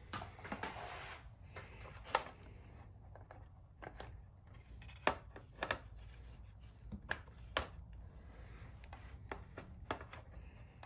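Light clicks, taps and rustling from hands handling a CNC control box's circuit board, metal end panel and cables: about eight separate sharp clicks spread through, over a faint low hum.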